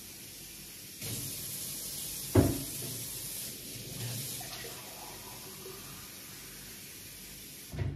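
Water running from a kitchen tap into the sink to soak glassware, a steady hiss that grows louder about a second in. A sharp knock comes about two and a half seconds in, and a smaller one near the end.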